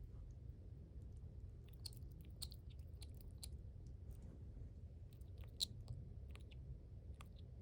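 A small pet chewing dry food: irregular faint crisp crunches and clicks, the sharpest about two thirds of the way in. The owner cannot tell whether this chewing noise is normal or a sign of a tooth problem.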